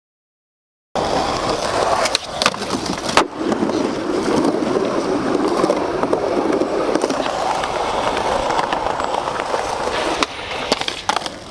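Skateboard wheels rolling on pavement with a steady grinding rumble, starting about a second in. A few sharp clacks of the board come early and again near the end.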